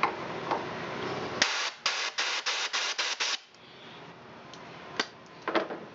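Compressed air from a blow gun blasted in about seven quick bursts through a Honda GX270 carburetor's main jet, starting a second or so in and lasting about two seconds. The blasts clear the jet and emulsion tube passages of old fuel residue.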